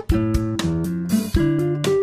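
Background music: a plucked guitar picking out single notes over a low bass line.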